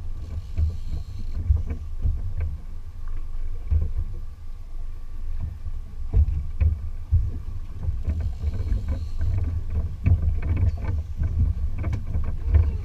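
Low rumble of wind on the microphone and water slapping against a small boat's hull at sea, with irregular knocks and thumps.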